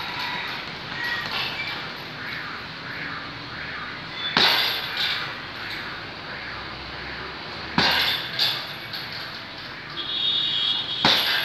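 Strikes landing on a hanging heavy bag: three hard smacks, roughly three to four seconds apart, with a steady hiss between them.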